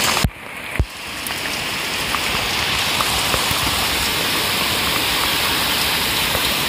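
Steady rain falling on a fish pond, an even hiss of drops on the water. It briefly drops away with two clicks just under a second in, then carries on unchanged.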